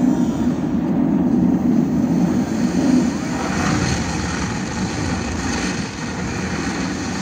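Avalanche of breaking ice and snow: a loud low roar, with a rushing hiss coming up over it after about three seconds.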